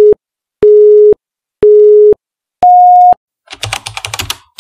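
Film-leader countdown beeps: three identical steady beeps about a second apart, then a fourth, higher-pitched beep. About a second later comes a brief burst of rapid clicking.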